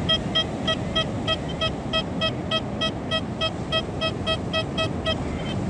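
XP Deus 2 metal detector beeping: one steady mid-pitched tone repeating about three times a second, signalling a metal target under the coil, over a hiss of wind and surf.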